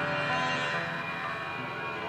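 Music from the stage score: several sustained pitched tones held together as a steady drone, with no plucked notes.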